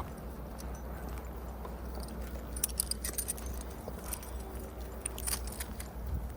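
Small metal pieces jingling in two short clusters, about two and a half seconds in and again a little after five seconds, over a steady low rumble.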